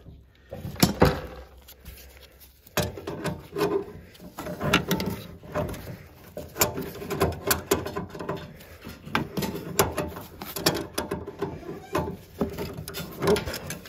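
Tongue-and-groove pliers gripping and turning the brass fittings of a tub drain assembly: a run of irregular metal clicks, knocks and scrapes, with a short pause about a second in.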